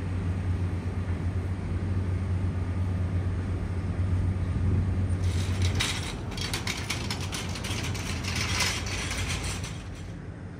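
A steady low hum, then from about halfway a metal hand truck rattling over brick pavers, a dense run of rapid clicks and clatter that fades near the end.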